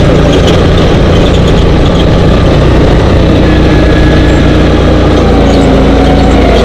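Dune buggy engine running steadily while driving over sand, loud and buffeted by rushing air on the microphone.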